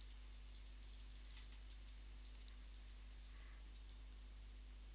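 Faint, irregular clicking of computer input, several clicks a second, that stops about four seconds in, over a steady low hum.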